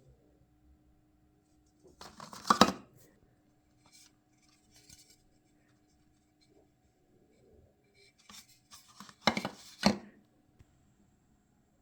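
Sharp clicks and clatter from items being handled and set down, in two short clusters about seven seconds apart.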